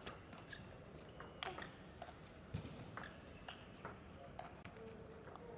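Table tennis rally: the plastic ball clicks sharply off the rubber-faced bats and the table, about once or twice a second, with short high squeaks of the players' shoes on the court floor.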